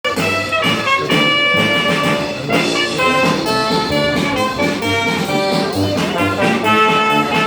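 Music with held notes from brass instruments, played at a steady loudness.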